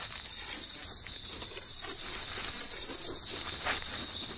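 Insect chorus: a steady high trill with a fast, even pulse.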